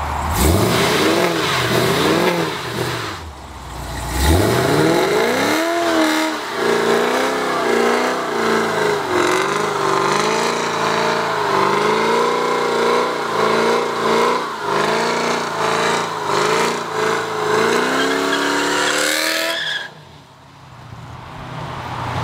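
Chevrolet SS's 6.2-litre V8 revved in a few quick blips, then held at high revs for about fifteen seconds in a tyre-smoking burnout, its pitch rising and falling under a steady wash of spinning-tyre noise. The sound cuts off suddenly near the end.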